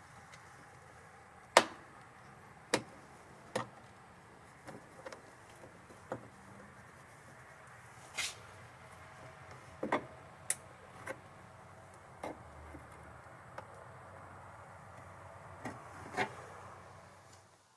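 Scattered sharp clicks and knocks at irregular intervals, the loudest about one and a half seconds in, over a faint steady background hiss.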